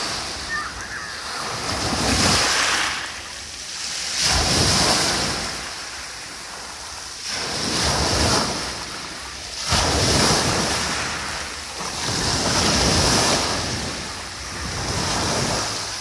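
Small Black Sea waves breaking and washing up a pebble beach, surging and falling back about six times, every two to three seconds.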